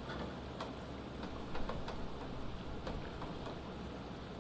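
Hurricane wind and rain: a steady rush with a low rumble, broken by irregular ticks of raindrops striking close by.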